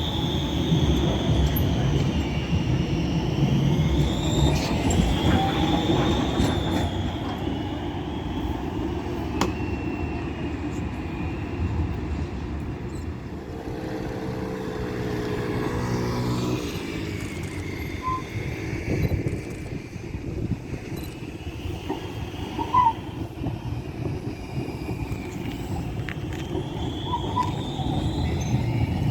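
Trams moving on the rails over a steady low rumble, with a high wavering wheel squeal near the start and again near the end. A pitched whine rises and falls in the middle.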